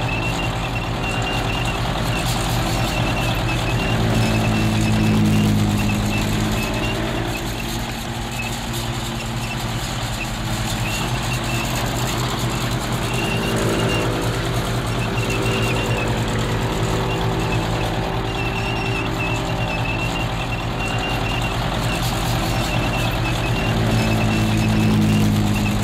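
Army tank engine running with a deep, steady hum that swells louder twice, about five seconds in and again near the end. A high, thin whine comes and goes over it.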